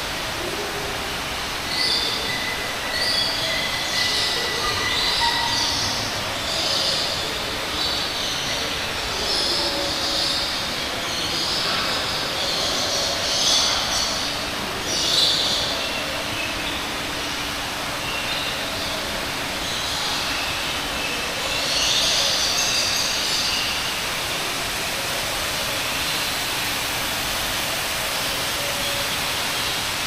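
Tropical birds in an indoor aviary giving repeated shrill squawks, about one a second for much of the first half and again in a cluster past the middle, over a steady background hiss.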